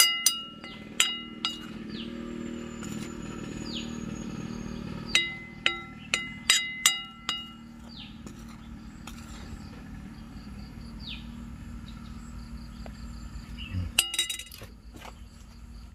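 Ringing clinks, like hard objects struck together, come in runs of several quick strikes: a few near the start, a run from about five to seven and a half seconds in, and more near the end. A steady low hum lies underneath, and a few short falling chirps sound now and then.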